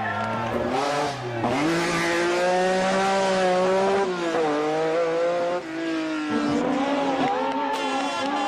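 Rally car engine revving hard through the gears: its pitch climbs, then drops back at each shift, about three times.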